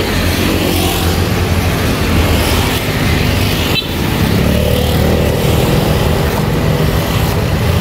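Steady, loud engine and road-traffic noise from vehicles running close by.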